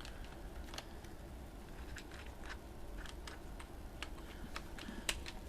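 Light, irregular clicks and taps of hands handling a cordless drill and fitting a woolen polishing pad into it, with a sharper click near the end; the drill is not running.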